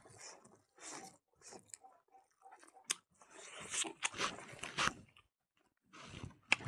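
Close-up eating sounds of a person chewing mouthfuls of rice and fatty pork cooked with pig blood, eaten by hand. The chewing comes in short spells, loudest and most continuous from about three to five seconds in.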